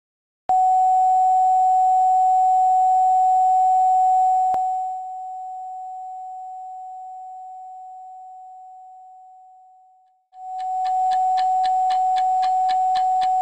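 A steady, high electronic tone of one pitch sounds for about four seconds, then drops with a click and fades slowly away. About ten seconds in it comes back with a fast ticking, about four clicks a second, laid over it.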